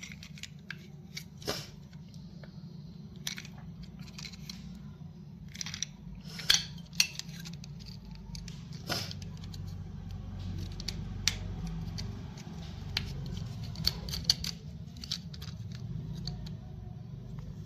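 Scissors snipping at packaging, with irregular sharp clicks and snips over a steady low hum.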